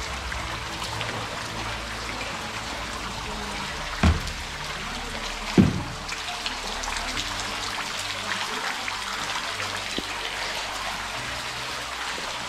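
Meltwater dripping from the roof of an ice arch in an iceberg, many drops falling into the glacial lake water with small, high, chirping plinks. Two louder, heavier thuds come about four and five and a half seconds in.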